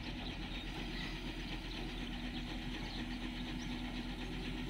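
Truck-mounted mobile crane's diesel engine running steadily at a constant speed, a low even hum.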